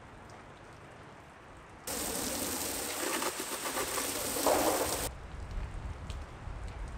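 Garden hose spray nozzle jetting water onto the side of a van, the spray hitting the bodywork and windows. It starts suddenly about two seconds in and stops just as suddenly about three seconds later.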